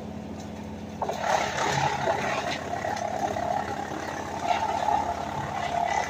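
A WM810 woodchipper, driven by a compact tractor, running steadily; about a second in it starts chewing brush, a loud, dense crackling and grinding over the steady machine hum as branches are fed through.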